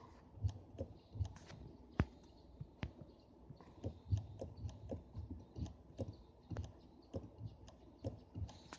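Irregular sharp clicks and short low knocks, several a second, from a car's automatic-transmission gear selector: the extraneous noise that is still there after the selector shaft was greased and the lever's contact surface taped.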